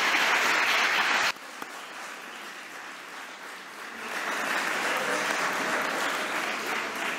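Audience applauding. The applause drops off abruptly just over a second in, carries on more softly, and swells again about four seconds in.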